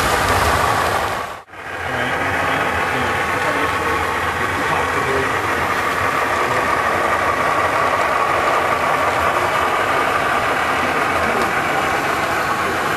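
A consist of HO-scale model diesel locomotives running past with a steady diesel-engine drone. The sound drops out for a moment about one and a half seconds in, then carries on unchanged.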